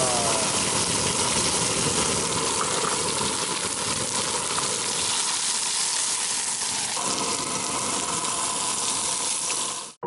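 Steak and garlic cloves sizzling in oil in a frying pan over a camping gas stove, a steady loud hiss that shifts slightly about seven seconds in.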